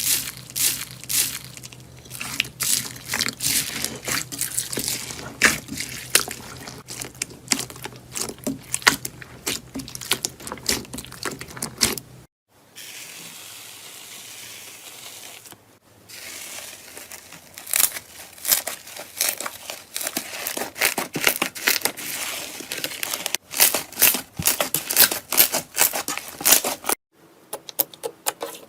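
Slime being squeezed, poked and pressed by hand, giving dense crackling and popping clicks. It changes with each new clip, and there is a softer steady hiss for a few seconds in the middle.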